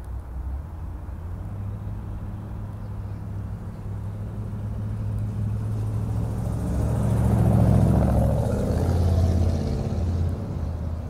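A motor vehicle's engine rumbling nearby, swelling to its loudest about eight seconds in and then fading, as it passes by.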